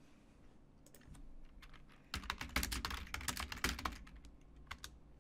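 Computer keyboard typing: a few scattered keystrokes, then a quick run of key clicks from about two to four seconds in, and a few more near the end.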